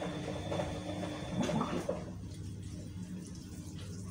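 Dark sauce pouring from a bottle onto raw pork chops, a soft liquid hiss that dies away about two seconds in. A steady low hum runs underneath.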